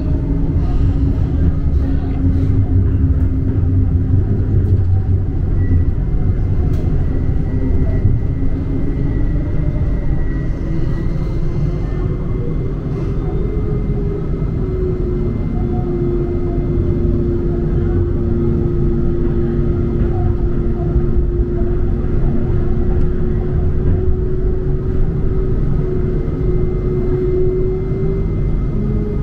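Huangpu Line 1 tram in motion, heard from on board: a steady low rumble with a motor whine that climbs in pitch about halfway through and then holds level.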